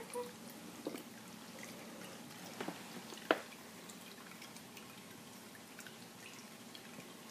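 Quiet room with a few faint clicks and taps, the sharpest about three seconds in.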